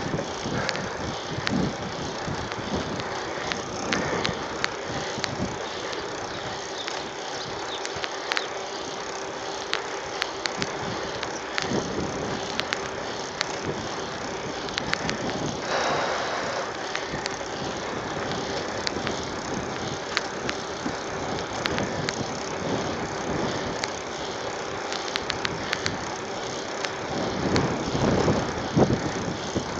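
Mountain bike rolling along an asphalt road: a steady rush of tyre and wind noise with frequent clicks and rattles from the bike, busier near the end.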